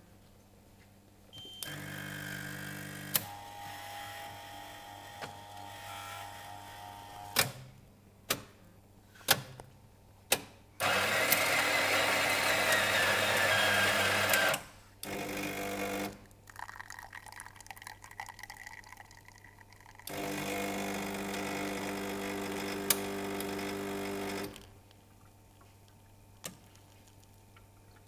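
Rheavendors Cino XS bean-to-cup coffee machine working through a vending cycle. Its motors start and stop in turn with sharp clicks between them, with one louder, dense rushing stretch of about four seconds in the middle and a steady humming stretch near the end.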